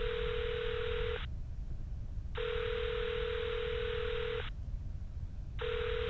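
Telephone ringback tone heard over the phone line while the call rings at the other end: a steady buzzing tone about two seconds on, a little over a second off, repeating, over a constant low line rumble.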